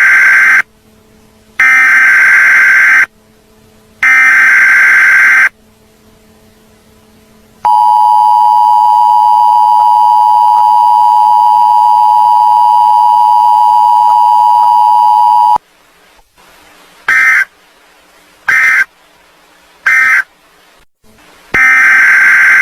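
Emergency Alert System broadcast tones. First three loud buzzing digital header bursts, then the steady two-tone attention signal held for about eight seconds. After that come three short end-of-message bursts, and another header burst begins near the end.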